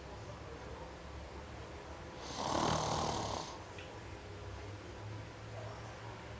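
A person snoring heavily: a low rumbling snore, with a loud breathy rush of about a second a little after two seconds in, one breath of a slow, regular snoring rhythm.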